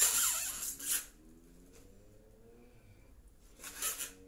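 Plastic wrapping on a treadmill frame rustling and rubbing as the frame is handled and set down, for about a second, then near quiet; a shorter rustle comes near the end.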